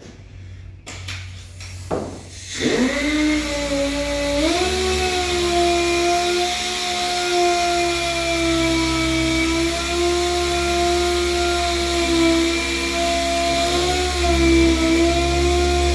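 Power sander with 180-grit paper starting up about two and a half seconds in, rising in pitch, then running with a steady whine as it sands body filler spots on a car roof.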